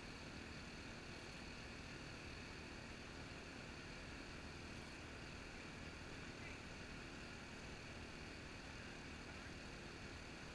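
Faint, steady outdoor background noise, a low hum with hiss and no distinct events.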